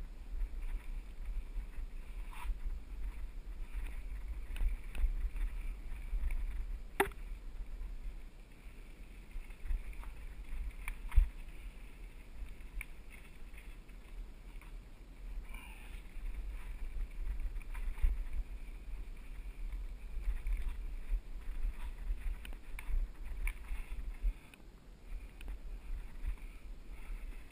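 Mountain bike rolling down a dirt singletrack, heard through a bike-mounted action camera: a steady low, jittery rumble of the tyres on the bumpy trail shaking the camera, with occasional sharp knocks and rattles as it hits roots and rocks.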